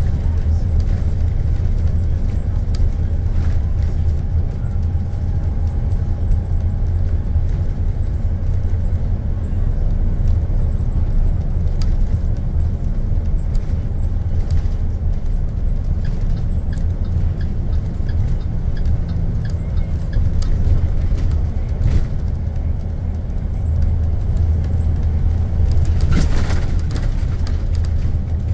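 School bus driving at road speed: a steady low rumble from the engine and tyres, heard inside the cab, with scattered rattles and clicks from the bus body. It swells briefly louder near the end.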